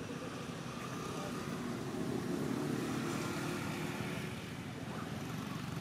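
Steady low background rumble that grows a little louder around the middle and eases off again.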